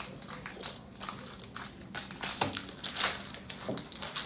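Pokémon booster pack wrapper crinkling as it is pulled open and the cards inside are handled: a run of irregular crackles, with a few sharper ones about two and three seconds in.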